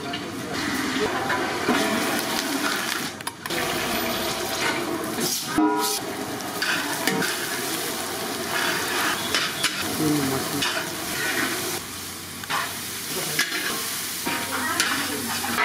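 Food sizzling in hot oil in a large metal kadai while a long metal ladle stirs and scrapes it, with frequent short scrapes and knocks of metal on metal.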